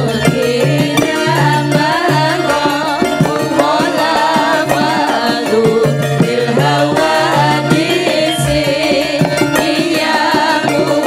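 A group of Javanese female singers (sinden) singing together into microphones, with a live band behind them playing a melody over repeated short low bass notes.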